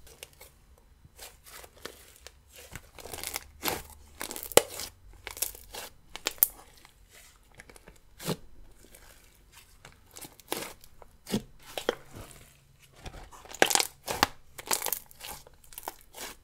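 Hands squeezing and kneading a thick jelly slime as it is worked into a fluffy, airy mass, giving irregular sticky pops and crackles. The pops thin out in the middle and come thick and fast again near the end.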